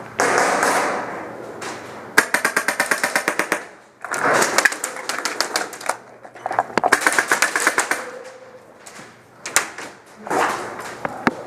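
Airsoft gun firing rapid full-auto bursts, one about two seconds in lasting over a second and another about seven seconds in, with stretches of hissing noise in between.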